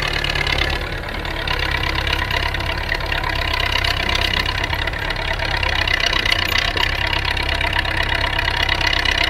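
Belarus 825 tractor's diesel engine running steadily as the tractor tows a trailer at a crawl.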